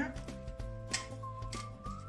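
Soft background music with steady held notes, with a couple of faint light taps about a second in.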